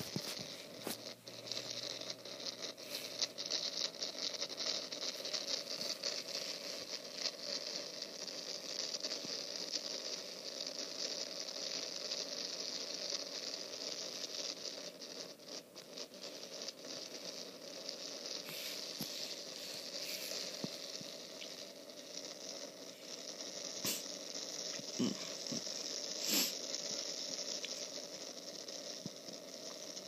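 Wind and rain noise from a city webcam's live stream, played back through a tablet's small speaker: a steady hiss with scattered clicks, and a few sharper ticks in the second half.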